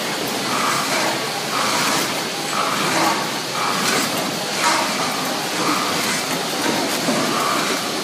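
Vertical form-fill-seal packaging machine with a multihead weigher running, a steady mechanical noise with a repeating cycle about once a second.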